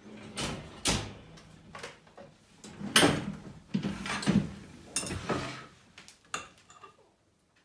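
A few knocks and clatters as a glass baking dish is taken out of the oven and set down on a table, then a utensil scraping and tapping in the dish. The loudest knock comes about three seconds in.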